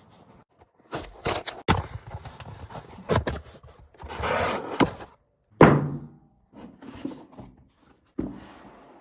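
Watch packaging being handled during an unboxing: a run of irregular knocks and clicks, a rustle about halfway through, then one sharp thunk with a short ring, followed by a few lighter knocks.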